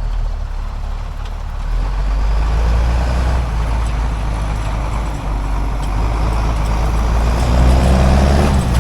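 Engine of a 5-ton military truck running as the truck is pulled out, getting louder after about a second and a half and loudest shortly before the end, where it drops off suddenly.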